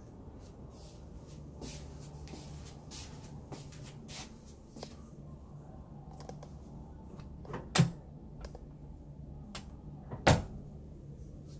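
A laminate dresser drawer knocks twice, about two and a half seconds apart, as it is slid open and shut. Small handling clicks and a low steady hum run underneath.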